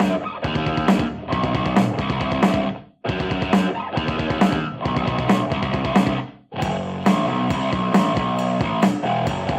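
Rock music with drums and guitar playing through a Sony SRS-XB31 Bluetooth speaker. The sound drops out briefly twice, about three seconds in and again about six and a half seconds in.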